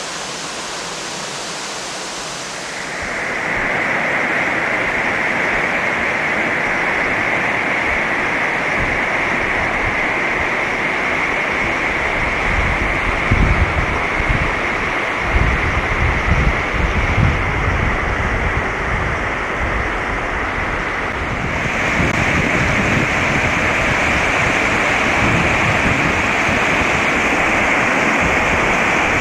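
Steady rush of a mountain torrent or waterfall, a continuous hiss that grows louder a few seconds in. Wind buffets the microphone in rumbling gusts around the middle.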